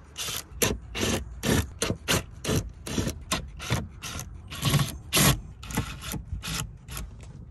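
Short, irregular rubbing and scraping noises, about two or three a second, from a cordless driver and hands working at the screws of a truck's center console.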